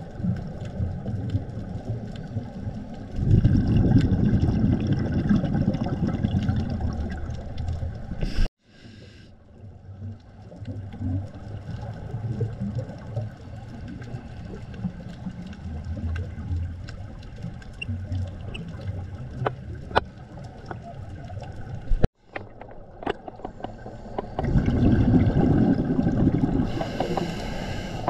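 Muffled underwater sound through a camera housing: scuba regulator exhalations bubbling in long, loud, low bursts, with quieter rumbling and scattered sharp clicks between them. The sound cuts off sharply twice.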